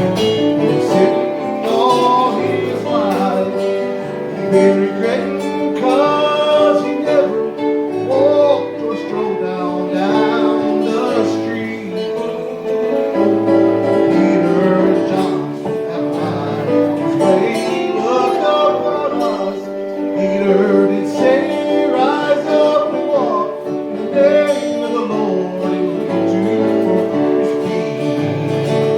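A gospel song sung with acoustic guitar accompaniment.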